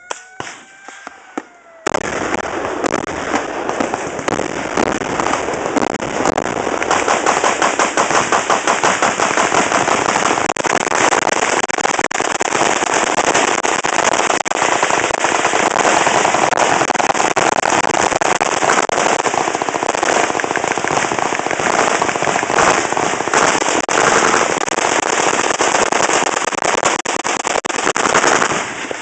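Many machine guns firing at once in a continuous, overlapping barrage of rapid shots, starting suddenly about two seconds in.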